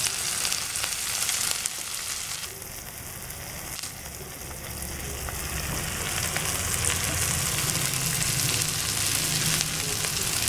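Chopped onions sizzling in hot oil on a flat tawa griddle, stirred and pushed around with a wooden spatula. This is the onions frying, the first stage toward browning them.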